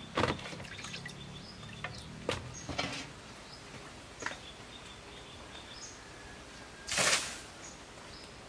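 Small birds chirping faintly over a steady outdoor background, with a few sharp knocks from the steel bowl and wet fish being handled in the first few seconds. About seven seconds in comes a short rush of water as the bowl of fish-washing water is tipped out.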